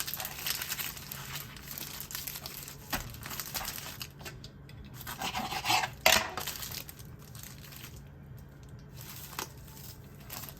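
Kitchen utensils scraping and rubbing against dishes during food preparation, with scattered clinks and a sharp knock about six seconds in.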